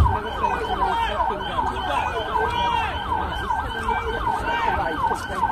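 Emergency vehicle siren in a fast yelp, its pitch sweeping up and down about five times a second.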